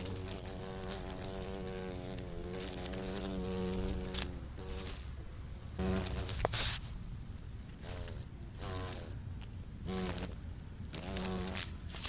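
Insect wings buzzing as a cicada killer wasp grapples with a cicada it has caught. A buzz of about four seconds comes first, then shorter buzzes come and go, with brief rustling clicks in between.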